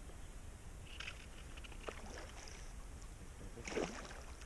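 A hooked pike splashing and thrashing at the surface beside a boat while being played on a fly rod: a few short splashes, the loudest just before the end, over a low steady rumble.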